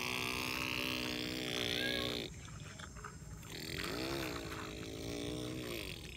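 Two long, drawn-out vocal calls. The first is held steady on one pitch and stops about two seconds in. The second, about three and a half seconds in, rises and falls.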